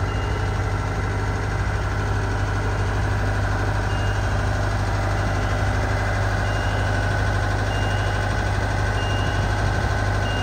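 Genie S-40 boom lift's Deutz four-cylinder diesel engine running steadily while the boom is lowered. Short high beeps from the lift's motion alarm sound at intervals, coming about every second or so near the end.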